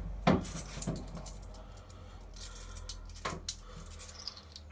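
Coins clinking and clicking as they are fed into a coin-operated kiddie ride's coin slot, a few sharp clicks among them, over a low steady hum from the ride.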